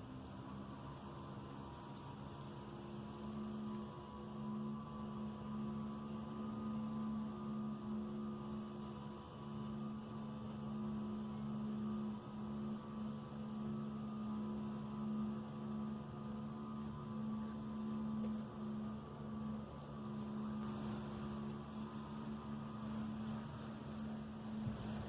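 A low, steady droning hum made of several held tones. It swells up over the first few seconds and then holds, wavering slightly. This is the unexplained 'strange sound from the night sky' type of drone, and its source is not identified.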